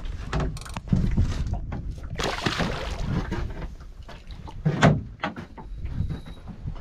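Irregular knocks and bumps of someone moving about and handling gear in a small boat, over a steady low rumble.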